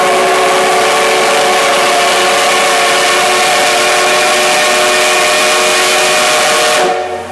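D51 steam locomotive's whistle sounding one long, steady blast of several notes at once, the departure signal. It cuts off suddenly near the end.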